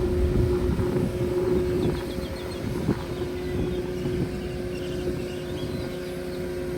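An engine running at a steady speed, its hum holding one pitch, with wind buffeting the microphone, strongest in the first two seconds. A single sharp knock about three seconds in.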